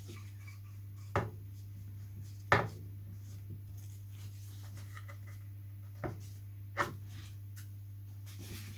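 Four short, sharp knocks from handling at a workbench, over a steady low hum.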